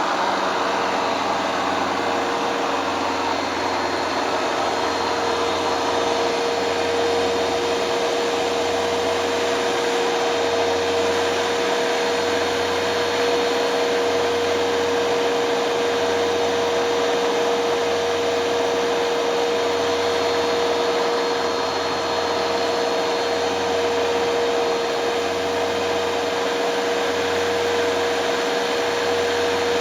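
Hoover Dual Power Max carpet cleaner running: its motor gives a steady whine over an even rush of suction noise.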